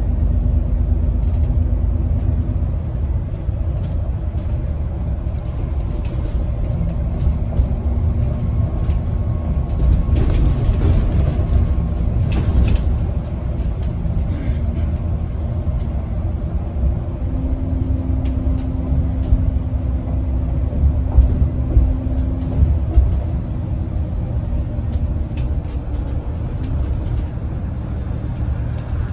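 Double-decker bus under way, heard from inside the upper deck: a steady low rumble of engine and road noise with a faint engine note. The note holds stronger for a few seconds past the middle, and light rattles and knocks come now and then.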